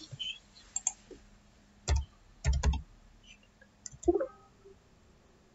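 Computer keyboard keystrokes and mouse clicks: a scattered handful of separate taps and clicks, a few of them in quick succession, with pauses between.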